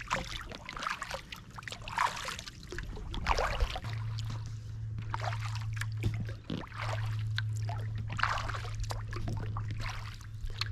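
Kayak paddle strokes dipping into calm water, with water splashing and trickling off the blade roughly once a second. A low steady hum joins in about four seconds in.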